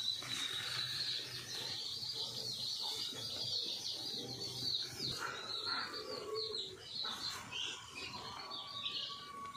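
Birds chirping steadily in quick, high-pitched calls, with a couple of soft knocks.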